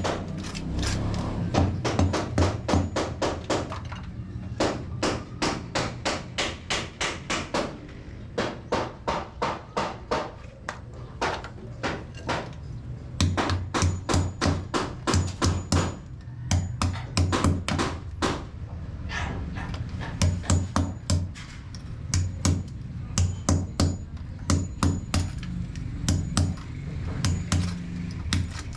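Hammer blows struck repeatedly in runs of about three a second, with short pauses between the runs.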